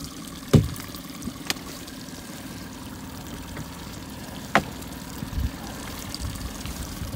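Water sloshing against a small fishing boat's hull over the steady hum of an outboard motor, with a few sharp knocks, the loudest about half a second in.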